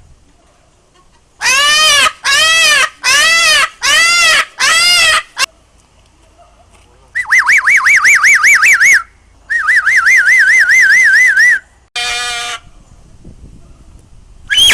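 Parrot calling loudly: five short arched squawks in a row, then two long warbling whistles that waver quickly up and down in pitch, then a short call near the end.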